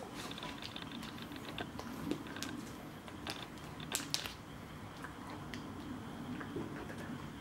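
Small mouth noises of a Shiba Inu chewing a soft chicken-fillet treat and licking its lips: scattered soft clicks and smacks, the sharpest about four seconds in.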